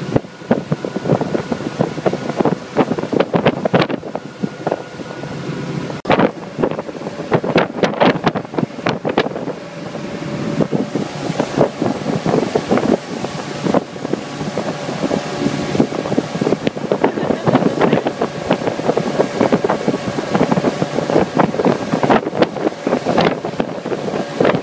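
Speedboat underway: its engine runs steadily under heavy wind buffeting on the microphone, with water rushing past the hull.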